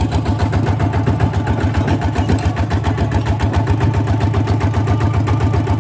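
Two-wheel walking tractor's single-cylinder diesel engine running steadily under way, with an even, fast pulsing beat from its firing strokes.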